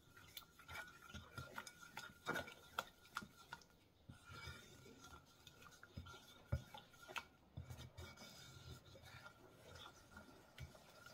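Spoon stirring a thick sauce in a mixing bowl, with faint, irregular clicks and scrapes of the spoon against the bowl.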